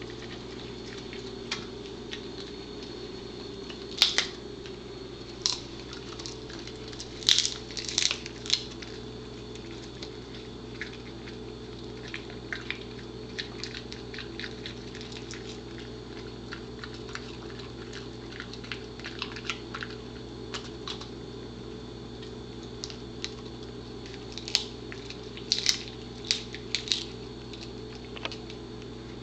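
A dog chewing a dehydrated buffalo tripe strip: scattered sharp crunchy bites and teeth clicks, bunched in two spells, in the first third and again near the end, over a steady low hum.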